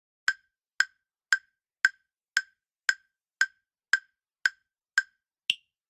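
Countdown timer sound effect ticking about twice a second, marking the time to answer. Ten identical clock-like ticks are followed near the end by a final, higher-pitched tick.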